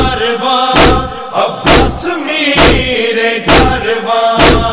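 Noha backing between recited lines: a chorus of voices holds a steady chanted drone, with a short wavering vocal line about two seconds in. Over it comes a heavy thump a little under once a second, the chest-beating matam beat that paces a noha.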